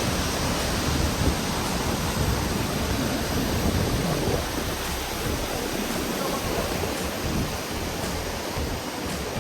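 Steady rush of a waterfall: a wide river pouring down a ramp.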